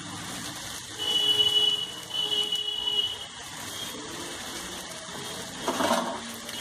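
Two long pitched tones, each about a second, one straight after the other about a second in, alarm-like and of unknown source. Under them runs the steady sizzle of mashed potatoes and spice masala frying in a pan.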